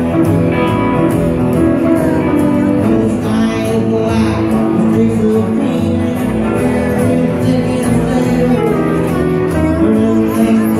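Live rockabilly band playing a song, with guitars and upright bass under a singing voice.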